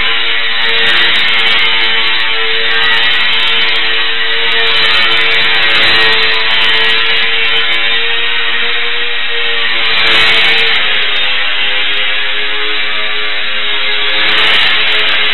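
Electric motor and propeller of an ultra-micro E-Flite UMX Extra 300 RC plane in flight, a steady buzzing whine whose pitch shifts with throttle, with a sharp dip and recovery about ten seconds in.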